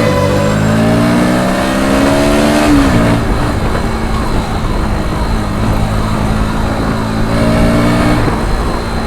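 Bajaj Pulsar NS 125 motorcycle's single-cylinder engine accelerating under way. Its pitch rises for nearly three seconds, drops sharply at a gear change, and rises again briefly near the end, over steady wind and road noise.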